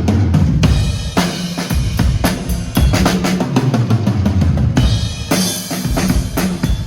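Rock music with a full drum kit playing a busy beat over a bass line.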